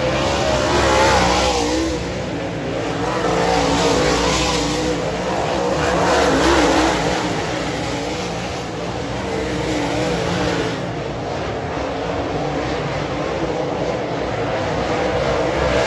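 Several dirt late model race cars' V8 engines running around a dirt oval. The engine note wavers in pitch and swells louder about every two to three seconds as cars pass.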